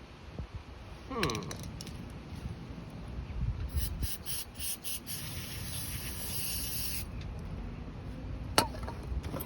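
Aerosol carburetor cleaner sprayed onto carburetor parts: a few short spurts, then a steady hiss lasting about three seconds that cuts off. There is a short squeak before it and a sharp click of metal parts after it.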